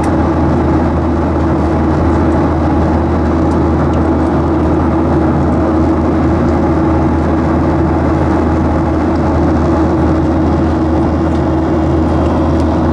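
Boeing 737 cabin noise in flight, heard from a window seat by the wing: the steady rush of the CFM56 turbofans and airflow, with a constant low hum and drone underneath.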